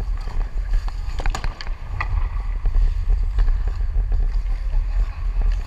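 Wind rumble on a camera worn by an ice hockey skater, with the hiss of skate blades on ice and a few sharp clicks of sticks or puck, the clearest about a second and a half in and two seconds in.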